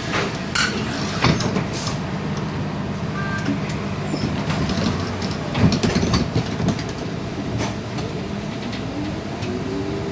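A UTDC CLRV streetcar running along its track: a steady rumble with repeated clicks, knocks and rattles from the wheels and body. Near the end a whine rises in pitch as the car picks up speed.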